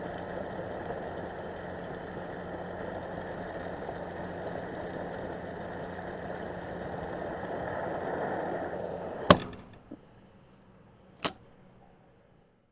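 Gasoline pouring through a pump nozzle into a car's fuel tank, a steady rushing flow over a faint pump hum that grows a little louder near the end. About nine seconds in, a sharp click as the nozzle shuts off with the tank full and the flow stops, then a small click and another sharp click about two seconds later.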